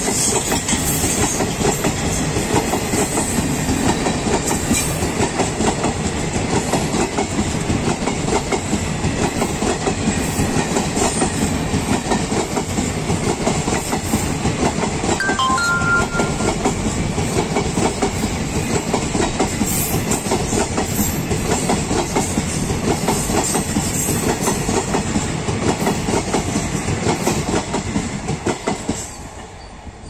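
ICF passenger coaches of an express train running past at speed, their wheels clattering rhythmically over the rail joints. The clatter drops away suddenly near the end as the last coach passes.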